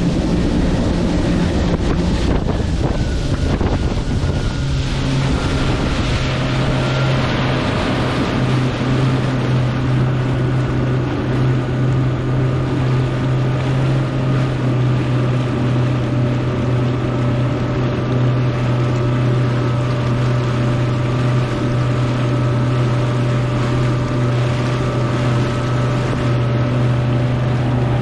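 Yamaha WaveRunner VX110's four-stroke four-cylinder engine running at a steady cruise. Its note drops slightly a few seconds in, then holds even, over wind buffeting the microphone and the hiss of water spray off the hull.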